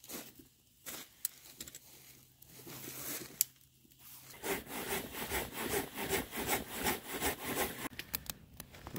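Wood fire crackling and popping: scattered sharp pops at first, then a denser, louder crackle from about halfway in.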